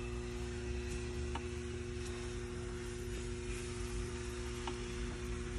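Steady electrical hum with an even hiss, and two faint ticks.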